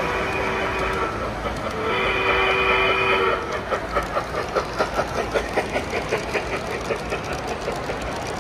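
Sound system of a large-scale model train: two long blasts of a chime whistle, then a model steam locomotive passing close with rhythmic chuffing, about three beats a second, over the rumble of wheels on the track.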